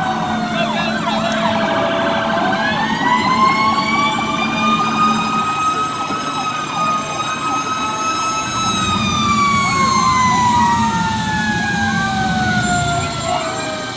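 A fire engine siren wails. It winds up about two seconds in, holds a high pitch for several seconds, then winds slowly down toward the end. Shorter siren whoops from other passing fire trucks overlap it, over the low rumble of truck engines.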